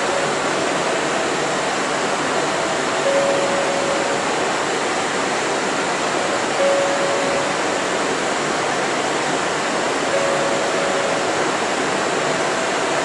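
Steady rushing running noise inside a Kyoto Municipal Subway 20 series car as the train moves along. A faint short hum comes and goes every three to four seconds.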